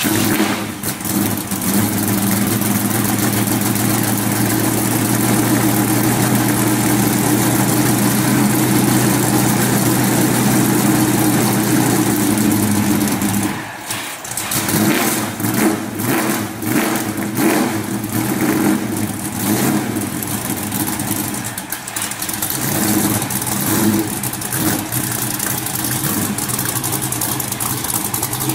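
1970 Chevrolet Chevelle SS V8 catching on a cold start, then running at a steady idle for about thirteen seconds. After that the idle turns uneven, the engine note rising and falling.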